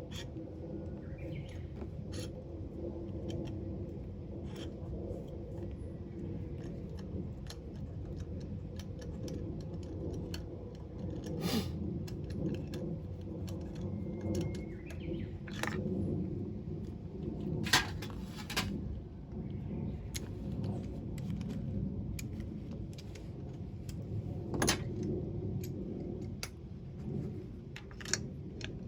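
Scattered sharp metallic clinks of hand tools, at irregular intervals, over a steady low rumble.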